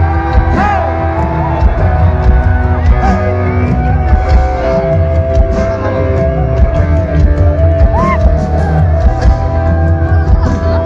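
Rock music played loud over an outdoor concert PA system: heavy bass with sustained, held guitar lines and a few bending notes.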